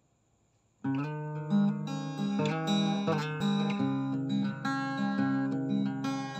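Steel-string acoustic guitar picked with the fingers, a flowing pattern of ringing chord notes that starts about a second in.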